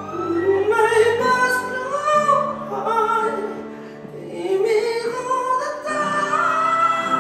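Live singing: a man sings a slow, drawn-out melody over held chords from a Roland keyboard, pausing briefly between phrases about four seconds in.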